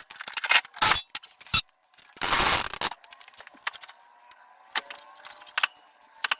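Hand-tool and metal work on a snowmobile's rear suspension skid. There are two loud bursts of noise lasting about a second each, the second about two seconds in, and many sharp metallic clicks and knocks around them.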